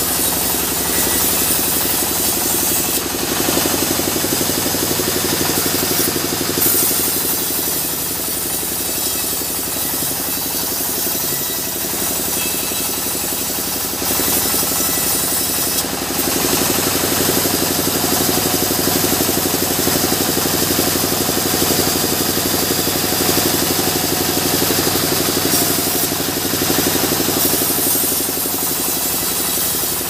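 Band sawmill running steadily with a constant mechanical drone, its blade cutting through mahogany. A brighter hiss of sawing comes in for two long stretches, starting a few seconds in and again about halfway through.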